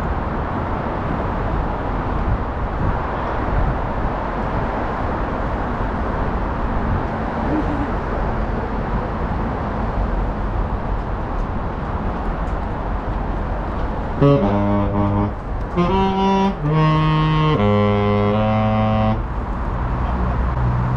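Steady traffic and city noise on the bridge walkway. About fourteen seconds in, a short melody of five or six held notes, each at a new pitch, plays for about five seconds and stops.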